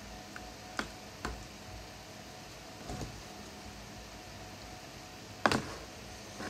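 A handful of short, sharp clicks and knocks from laptop parts and tools being handled during disassembly, the loudest about five and a half seconds in, over a faint steady hum.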